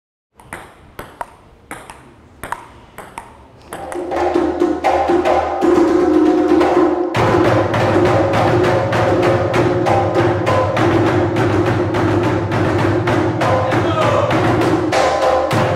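Drumming: sticks striking a tall barrel drum alongside hand drums. It starts as a few sparse, sharp strikes, builds into a steady fast rhythm about four seconds in, and fills out with deeper drum tones about seven seconds in.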